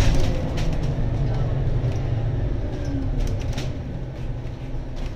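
Scania N280UD double-decker bus on compressed biogas, heard from inside the lower deck: a low engine and road rumble that eases off as the bus slows toward a queue at traffic lights, with a few brief rattles about three and a half seconds in.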